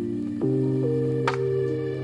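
Background music: soft, sustained keyboard chords that change about every second, with light plucked or struck notes on top.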